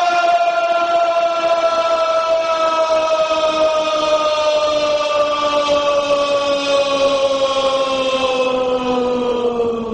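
Male singers of an Ottoman mehter band holding one long unison 'Yaaa' note, the pitch sinking slowly, before it stops near the end.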